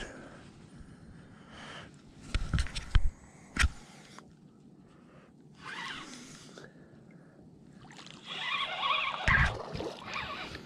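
Spinning rod and reel handled in a plastic kayak: a few sharp knocks against the hull a couple of seconds in, then the spinning reel cranked for about two seconds near the end while reeling in a hooked fish, with another knock.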